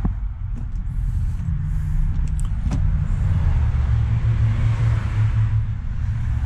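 Road traffic running nearby: a steady low rumble, with one vehicle swelling past from about three and a half to six seconds in, and a couple of light knocks.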